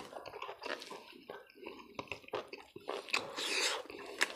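Bare hand mixing and squishing cooked rice with boiled pork and cabbage on a plate. It gives irregular wet, sticky squelches and soft clicks, with a fuller squelch about three seconds in.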